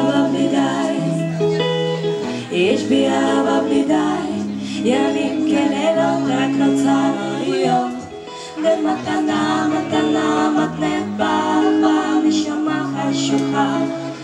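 Women singing into microphones over musical accompaniment, with held bass notes changing every second or so.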